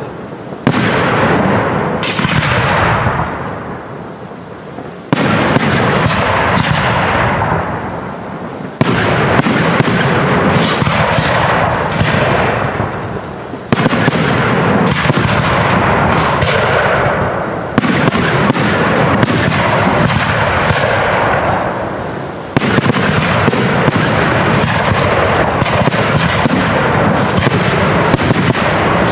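Aerial fireworks display: shells launching and bursting in a dense, rapid barrage of bangs. A fresh volley starts abruptly every four or five seconds, each dying away before the next.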